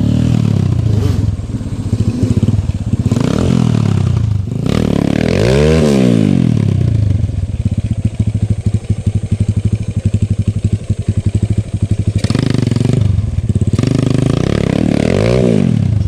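Motorcycle engine revving up and dropping back several times over a fast, even firing beat. The biggest rise and fall comes about six seconds in, with another near the end.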